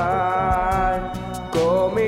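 A man singing a Hindi Christian worship song over a backing track with a beat. He holds one long, wavering note, breaks off after about a second and a half, and starts the next note just before the end.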